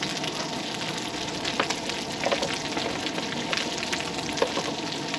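Food frying in hot oil in a pan: a steady sizzle with scattered crackles and pops.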